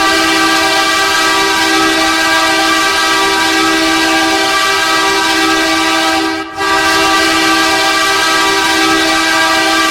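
NHL arena goal horn blowing long, loud sustained blasts, with one brief break about six and a half seconds in.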